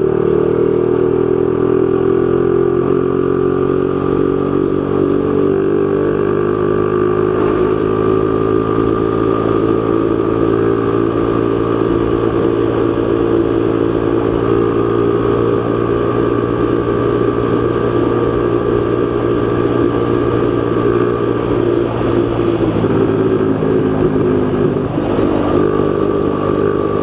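Z200S motorcycle with an open Akrapovic Evo GP exhaust, running at a steady high engine speed while cruising at about 110 km/h. The exhaust note holds nearly constant throughout, with a slight dip and recovery near the end.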